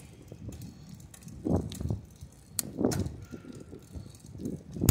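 Bicycle riding along a paved trail: a low, uneven rolling rumble with a couple of louder swells and a few sharp clicks.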